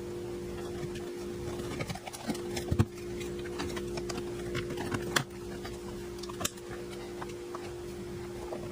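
Plastic trim pieces being pressed back into a car's interior door panel: a few scattered sharp clicks and knocks over a steady low hum.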